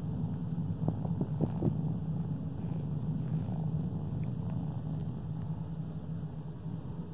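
Kitten purring, a steady low rumble, with a few short soft clicks about a second in.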